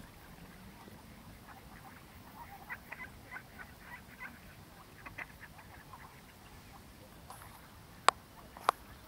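Ducks giving a scattering of short, soft quacks and calls. Two sharp clicks close together near the end are the loudest sounds.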